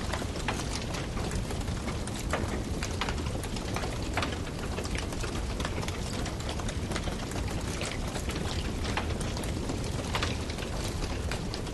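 Wood fire crackling, with frequent sharp, irregular pops over a steady low rumble.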